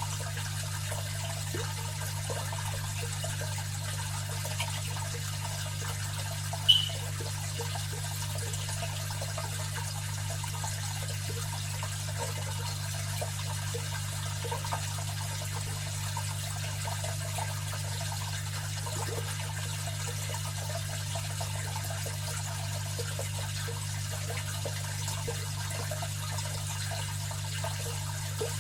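Fish tank filter running: water trickling and bubbling steadily over a low motor hum, with one sharp tick about seven seconds in.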